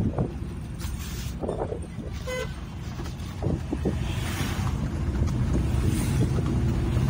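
Vehicle engine running with road rumble, heard from inside the cab while driving slowly through traffic. A short horn toot sounds about two seconds in.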